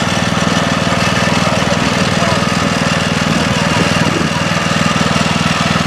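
Lawnmower engine running steadily at an even speed.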